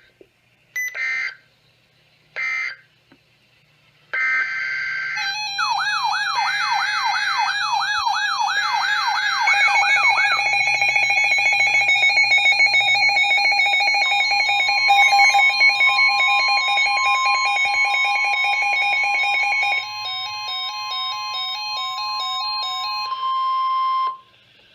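Several weather alert radios sounding alarms at once for an incoming warning. Short digital data bursts of the EAS/SAME code come first. About five seconds in, a warbling siren sweeps up and down about twice a second, joined by rapid electronic beeping at several pitches. Under them runs the steady 1050 Hz NOAA Weather Radio warning tone, which cuts off abruptly near the end.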